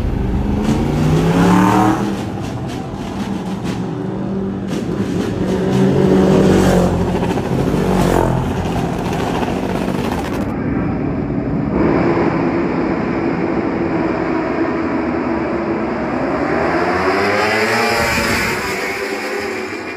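Superbike racing motorcycle engines revving high and accelerating away from a race start. The pitch climbs in several sweeps, dropping back at each gear change.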